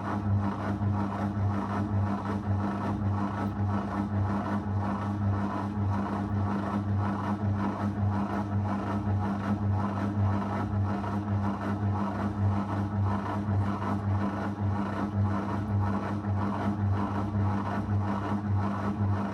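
Zanussi FL984CN front-loading washing machine running, a steady low hum with an even pulsing several times a second.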